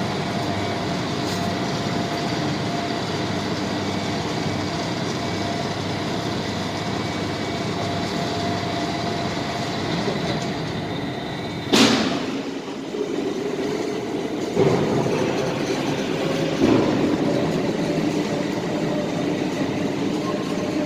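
Steady running of heavy machinery, a constant hum with several held tones. A short, sharp hiss or squeal comes about twelve seconds in, followed by a few knocks.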